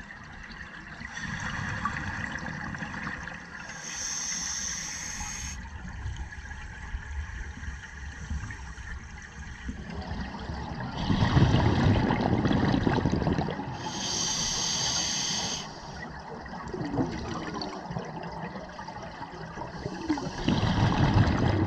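Scuba diver breathing through an open-circuit regulator underwater: a steady hiss on each inhale, twice about ten seconds apart, and a bubbling rush of exhaled air after each one.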